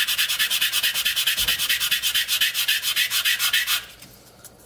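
Hand-sanding a small Depron foam piece with a scrap of sandpaper: quick, even back-and-forth scraping strokes, several a second, that stop abruptly near the end as the paper is lifted off.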